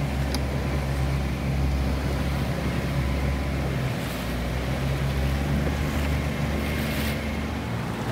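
Outboard motor of an inflatable chase boat running steadily underway, a constant low hum with water rushing past the hull.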